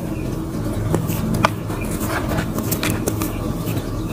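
Dry crumbly mud dirt being crushed and rubbed between the fingers, giving scattered small crunches and crackles, the sharpest about a second and a half in. A steady low hum runs underneath.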